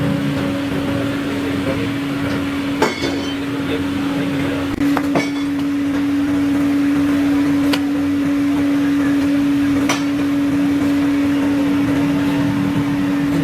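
Factory machinery running with a steady hum over a noisy rumble, with a handful of sharp clicks and knocks at irregular intervals.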